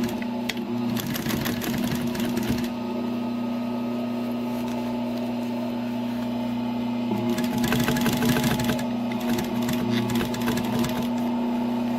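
Heavy-duty sewing machine stitching through pack fabric to reinforce a blown-out seam: a steady motor hum with the needle clattering rapidly in two runs of stitching, the first near the start and the second in the latter half.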